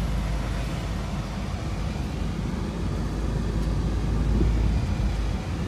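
A car's engine and tyres on the road, heard from inside the cabin while driving: a steady low rumble.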